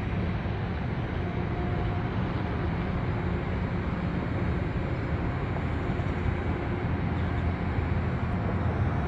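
Steady low outdoor rumble with a hiss over it, even throughout, with no distinct events.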